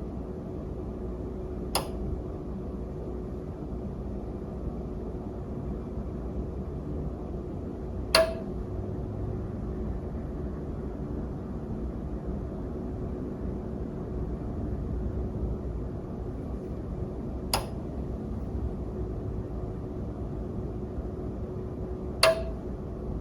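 Steady low background noise with a faint constant hum, broken by four sharp clicks several seconds apart, two of them followed by a short ringing note.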